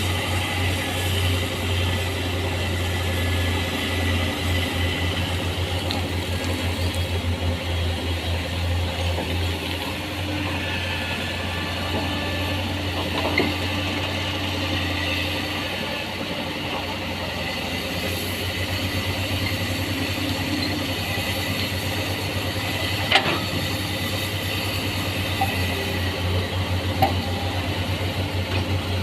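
Hydraulic excavator's diesel engine running steadily under load as it works sand, a pulsing low drone with a thin steady whine above it. A few sharp knocks sound through it, the loudest about two-thirds of the way through.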